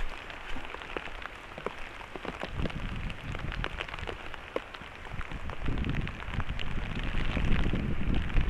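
Rain falling steadily, with many separate drops ticking sharply through the steady hiss, growing louder near the end.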